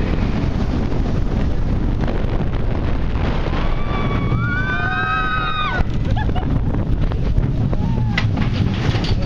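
Steel roller coaster ride heard from a rider's seat: steady wind rush over the microphone and the rumble of the train on the track. Near the middle a rider lets out one long scream, rising at first and held for about two seconds before it breaks off.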